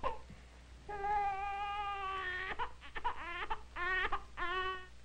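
Newborn baby crying: one long wail, then a run of short, choppy cries.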